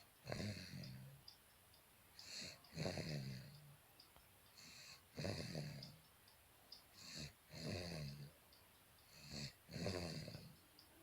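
Steady snoring, about one snore every two seconds. Each snore is a short breath followed by a longer, lower-pitched one.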